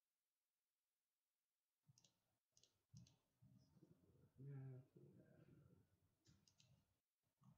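Faint clicks of typing on a computer keyboard, in a few short runs, over low room noise; near silence for about the first two seconds.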